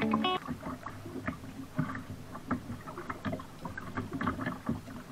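Double-bladed kayak paddle dipping into the sea on alternating sides, each stroke giving a short irregular splash and swish of water.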